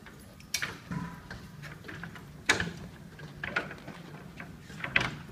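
Someone climbing a ladder: about five irregular clunks and knocks as feet and hands land on the metal rungs.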